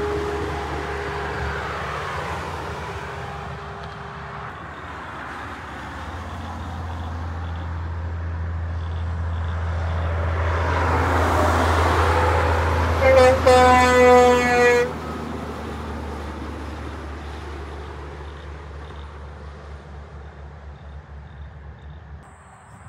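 Semi-trailer truck passing on a motorway, its engine and tyre noise building and then fading away. About 13 seconds in, an air horn sounds a loud blast of about two seconds.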